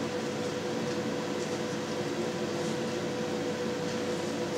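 A steady machine hum with one constant mid-pitched tone running through it.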